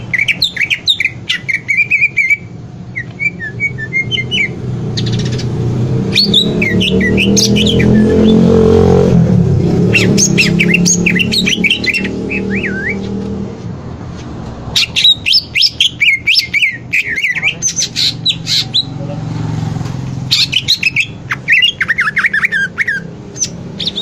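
Caged male greater green leafbird (cucak ijo) singing in about six phrases of rapid, varied chirps and trills, with short pauses between them. A low rumble swells and fades in the middle.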